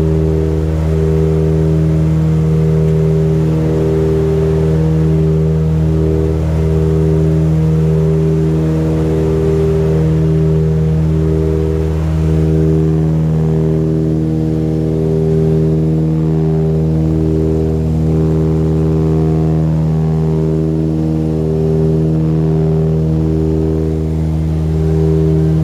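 Light propeller plane's engine and propeller droning steadily in flight, heard inside the cabin, with a slow regular throb about once a second.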